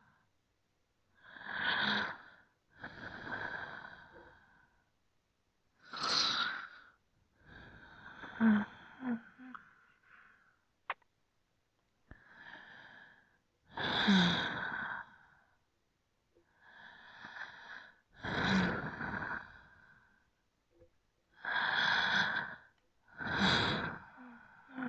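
A person breathing slowly and deeply close to the microphone: about ten separate breaths drawn in and let out, each a second or so long with short pauses between, a few carrying a brief note of voice. A single sharp click about eleven seconds in.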